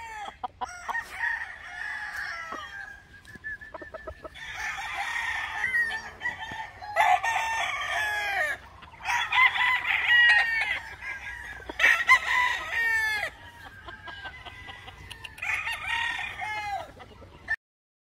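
Gamefowl roosters crowing, about five long crows one after another with other birds clucking underneath. The sound stops abruptly near the end.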